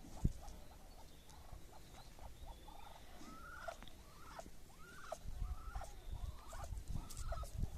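Small farm animals calling: a run of short, arching squeaky calls, about one or two a second, starting around three seconds in. A sharp tap comes right at the start, with low rumbling noise in the second half.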